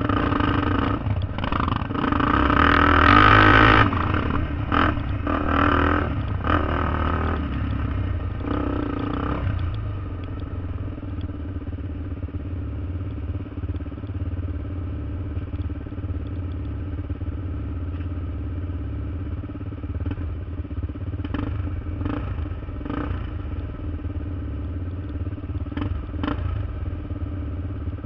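ATV engines on a dirt trail, running under throttle with rising and falling revs for about the first ten seconds, then settling to a steady idle as the quads stop.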